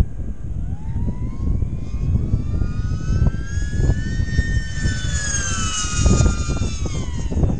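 Electric motors and propellers of a TwinRad FPV flying wing in flight: a doubled whine that climbs in pitch over the first few seconds, then slowly sinks. Wind buffets the microphone throughout.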